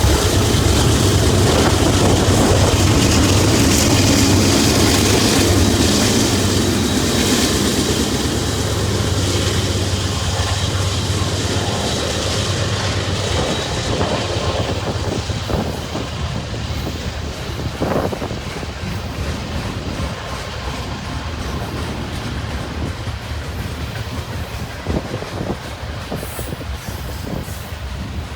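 Union Pacific freight train passing: the drone of its diesel locomotives fades about halfway through, leaving the freight cars rolling by with clickety-clack from wheels over rail joints and occasional sharp clicks.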